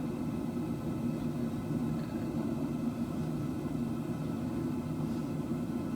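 Propane forge burner running with a steady low roar, with no hammer blows.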